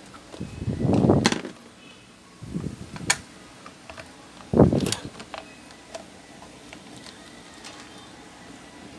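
Handling noise from a stand fan's plastic motor housing with a screwdriver worked through a hole in it: three short bursts of rubbing and knocking, each ending in a sharp click, the last the loudest.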